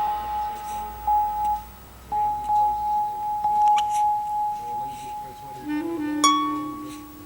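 Background music: a long, steady held high note over soft accompaniment, with a plucked note ringing out near the end.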